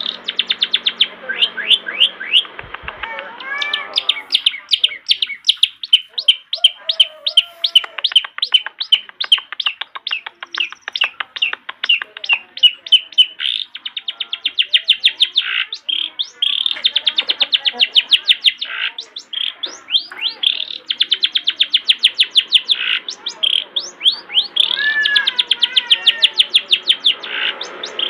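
Long-tailed shrike (cendet) singing continuously: rapid runs of sharp, repeated high notes, several to the second, broken now and then by varied warbling phrases.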